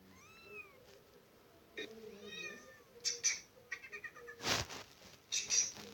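A domestic cat meowing twice, each meow rising and then falling in pitch, followed by a few short, louder noises.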